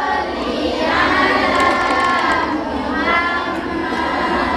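A group of young women singing together in unison, many voices blended.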